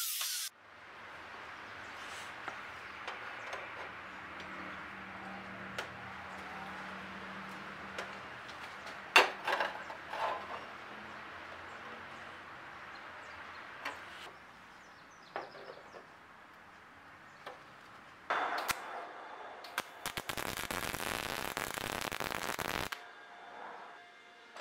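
An angle grinder on steel cuts off right at the start. A few sharp metal clanks follow as steel tube pieces are set in place. Near the end a MIG welder's arc crackles for about four seconds, with one short break, laying a bead on thin steel tubing.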